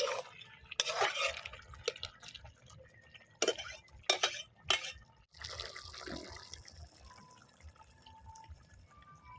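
Water splashing and dripping, with several sharp knocks and clatters in the first five seconds. After that comes a steady hiss of running or pouring water.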